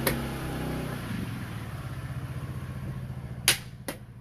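A motor-vehicle engine runs close by, its low hum swelling and then fading near the end. Over it come sharp clacks of xiangqi pieces and the chess clock: one at the start, then two quick ones about three and a half seconds in, the first of these the loudest sound.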